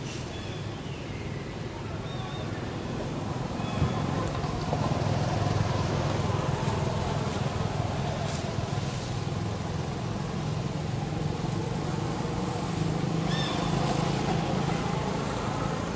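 A motor engine running steadily as a low hum, swelling about four seconds in and again near the end, with a couple of short high chirps over it.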